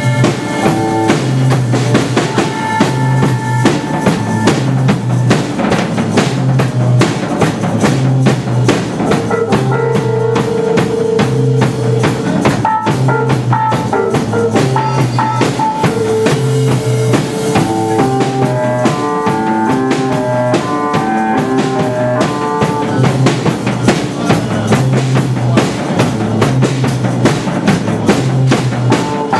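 A small live band playing: a drum kit keeps a busy, steady beat with bass drum and snare, under a repeating low bass figure and melodic keyboard and saxophone lines.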